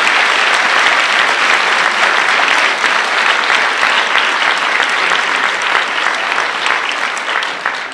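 Audience applauding with dense, sustained clapping that begins to fade near the end.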